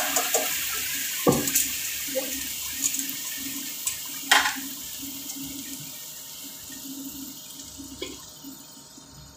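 Onion and tomato sauce sizzling in a frying pan, a steady hiss that slowly dies down. A few sharp knocks and scrapes, about three, come from the spatula and utensils against the pan.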